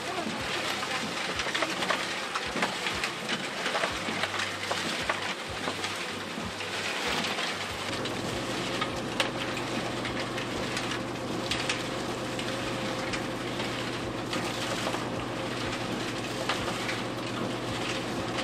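Oyster shells clattering and rattling against each other as they are sorted. About eight seconds in, this gives way to a steady pump hum and the hiss of a hose spraying water over a wire oyster cage.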